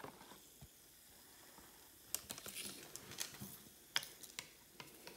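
Faint fizzing of Emergen-C effervescent drink mix reacting in a glass of water, bubbles crackling with scattered small pops and clicks that grow busier about two seconds in.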